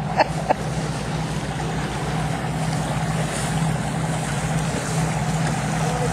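Boat engine running steadily under way at low speed, an even hum, with water washing along the hull and wind on the microphone. A few short sharp clicks right at the start.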